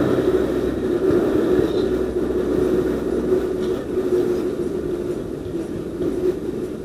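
A motor vehicle's engine running with a steady hum and low rumble, gradually fading away.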